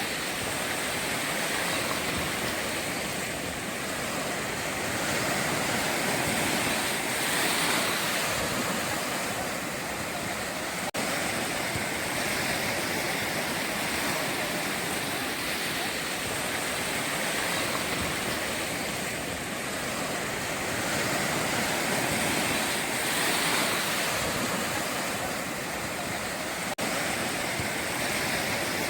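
Ocean surf washing onto the shore, a continuous rush of breaking waves that swells and eases every several seconds.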